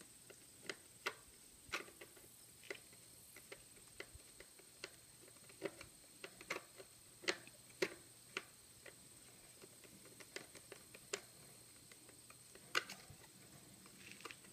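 Faint, irregular clicks of a screwdriver turning the screw on the plastic air filter cover of a Briggs & Stratton Intek engine, with the tool tapping and scraping in the screw head and against the housing.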